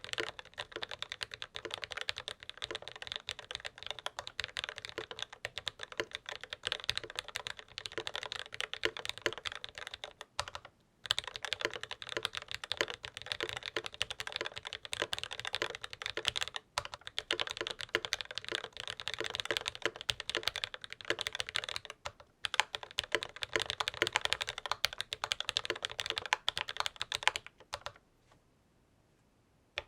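Fast, continuous typing on a Novelkeys NK87 aluminum mechanical keyboard with lubed linear Franken switches (Akko Jelly Black stems in Cherry MX Black Hyperglide housings) and GMK keycaps: a dense patter of keystrokes with a few brief pauses, stopping about two seconds before the end.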